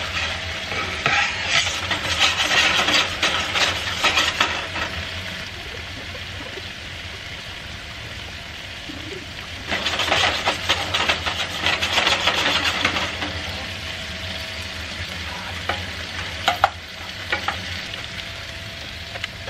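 Chicken breasts sizzling steadily as they sear in oil in a frying pan. There is a louder spell of sizzling with utensil clinks and scraping in the first few seconds. Just under ten seconds in, a burst of hissing sizzle starts sharply as sliced mushrooms go into melted butter in a saucepan.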